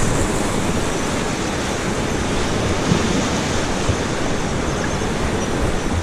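Whitewater rapids of the Beas River rushing around an inflatable raft: a steady, loud wash of water noise.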